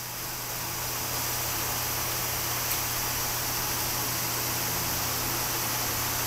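Steady hiss with a low hum underneath, slowly growing louder, and a single faint click about halfway through.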